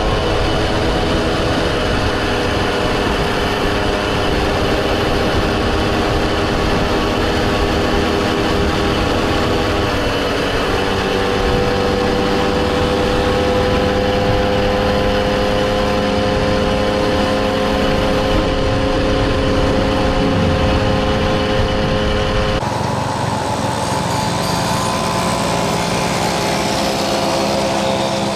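Small two-stroke moped engines running steadily during a ride, their pitch holding with only slight rises. About three-quarters of the way through the sound changes abruptly, losing its low rumble.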